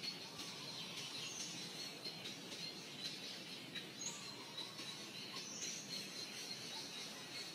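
Faint forest ambience of birds and insects calling: a steady high chirping, with a few short, sharper chirps over it.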